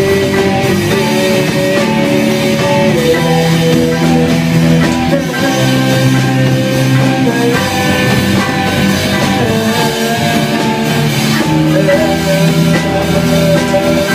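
Rock band playing live without vocals: electric guitars, drum kit and keyboard, loud and steady, with held notes moving every second or two over the beat.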